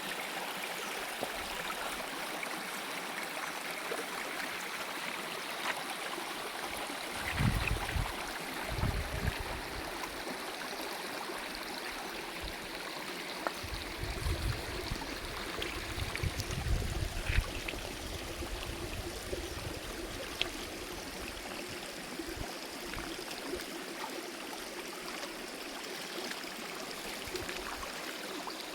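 Stream water running steadily over rocks, with low rumbles surging twice, about a third of the way in and again around the middle.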